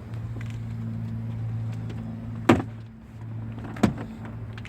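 Two sharp snaps about a second and a half apart, the first the louder: plastic retaining clips of a Hyundai Santa Fe rear door trim panel popping out as the panel is pried off with a trim tool. A steady low hum runs underneath.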